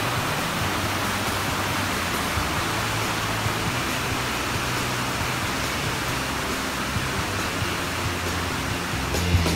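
Steady rushing of whitewater river rapids pouring over boulders.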